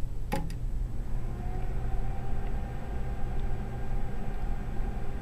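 A single sharp click as the power button on a BK Precision bench DC power supply is pressed to energise the capacitor charging circuit. It is followed by a steady low hum of lab bench equipment, with a faint steady whine coming in about a second later.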